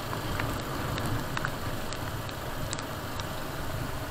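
Motorcycle riding noise: a steady low rumble of engine and wind rush, with scattered short, sharp ticks.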